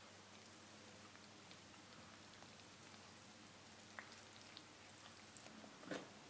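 Faint, soft crackle of a wooden spoon stirring flour into liquid in a glass bowl, with scattered light clicks and a couple of louder knocks near the end.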